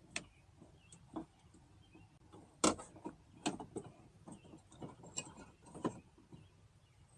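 Irregular clicks and knocks of a power window motor being fitted onto the window regulator inside a car door, the loudest knock about two and a half seconds in.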